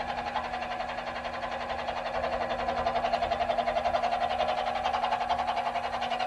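Grizzly 7x14 mini lathe running with its cutting tool fed into a workpiece in the chuck: a steady motor and gear whine with a fast, even pulsing, getting louder about two seconds in as the cut goes on.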